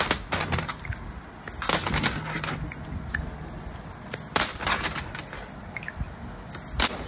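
Irregular clinking and clattering: a run of small sharp knocks at uneven intervals over a low steady background hum.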